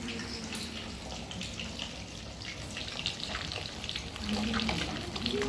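Pieces of food deep-frying in hot oil in an iron karahi on a gas stove: a steady sizzle with many fine crackles.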